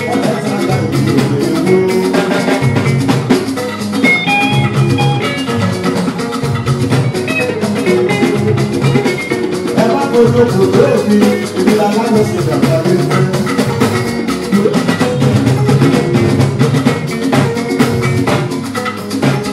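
Live band music: electric guitars and bass over drums and percussion.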